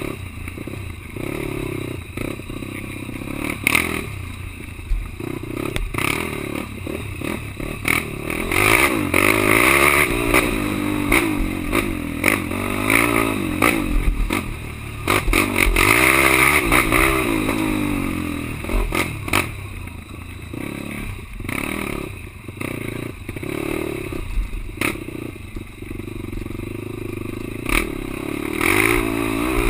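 Racing quad (ATV) engine revving up and falling back again and again, with frequent knocks, clatter and rattles from the machine over rough ground.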